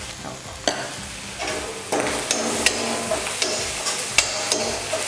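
Spice paste frying in hot oil in a pan, sizzling as it is stirred, with several sharp knocks of the utensil against the pan.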